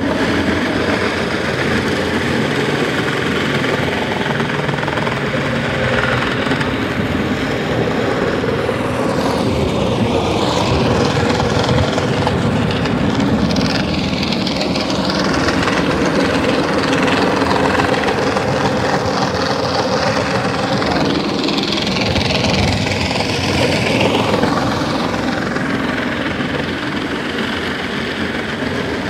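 Lagler Single buffer, a single-disc floor machine, running with its milling disc and scraping flooring adhesive off a plywood subfloor: a loud, steady grinding machine noise that comes on abruptly at the start.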